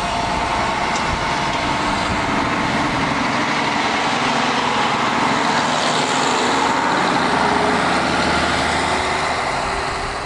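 JR Hokkaido KiHa 54 diesel railcar pulling away from a station under power. Its engine runs loud and steady as it passes, and a faint tone rises in pitch in the last few seconds as it gathers speed.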